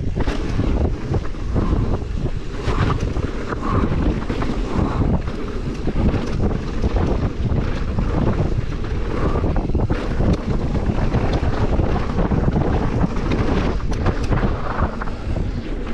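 Wind buffeting the microphone over the rumble of mountain bike tyres on a dirt trail at speed, with frequent short rattles and knocks from the bike over bumps.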